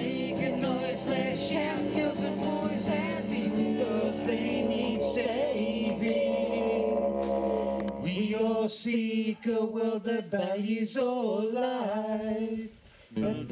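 Background music: a song with instruments and singing. About eight and a half seconds in, the low accompaniment drops out and a wavering voice carries on nearly alone, breaking off briefly near the end.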